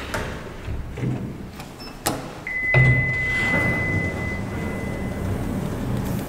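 KONE MonoSpace elevator arriving at a floor: a click about two seconds in, then a single long arrival tone that fades over about three seconds while the doors slide open with a low rumble.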